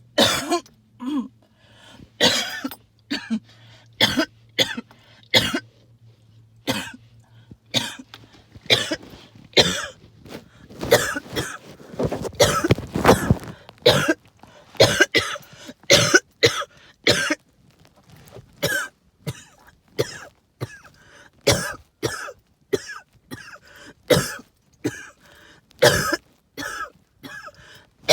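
A person's hacking cough, short harsh coughs one after another, about one or two a second, with a denser run of coughing about halfway through. The uploader puts the coughing down to tree pollen and mold spores.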